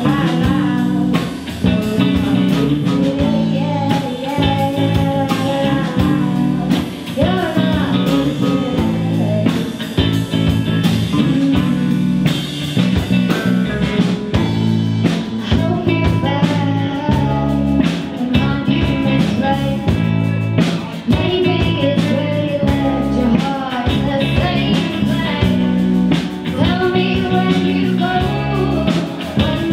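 Live indie rock band playing a song: a woman singing lead over two electric guitars, electric bass and drum kit.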